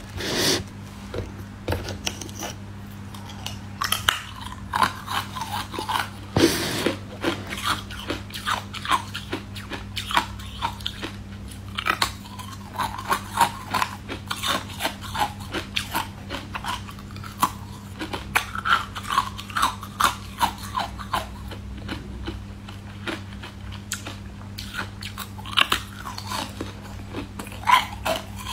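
A person biting and chewing crunchy green-coloured edible ice: sharp crunches come in quick runs all through, with a few louder bites, over a low steady hum.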